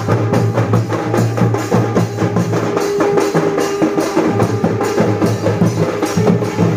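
Jodi Sankha folk music: paired conch shells blown in a steady low drone over a fast, driving beat on a barrel drum.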